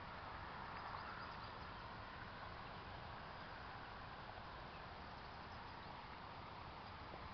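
Faint, steady outdoor background hiss with no distinct sound standing out.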